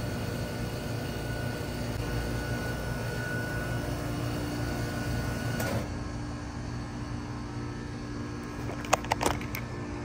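Trane XB13 heat pump outdoor unit with a Climatuff reciprocating compressor running in cooling mode. About six seconds in, its sound changes with a brief rush and the steady tone drops away while a lower hum carries on, typical of the compressor shutting off. A few sharp clicks come near the end.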